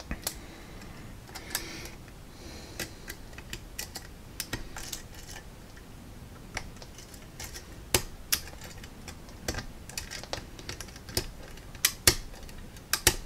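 Offset diamond pick and tension wrench working the pins of an Arrow six-pin rim cylinder: irregular small metallic clicks and ticks as the pick runs over the pins, feeling for binding ones, with a few sharper clicks near the end.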